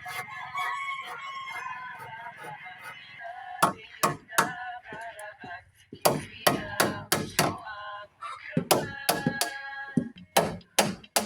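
Background music, then from about three and a half seconds in a series of sharp hammer blows on wood. The blows are irregular, at times about two a second, and the music continues under them.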